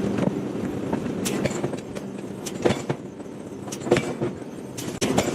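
Forging machinery running with a steady hum, with irregular sharp metallic clanks as iron is handled and struck, about seven in all.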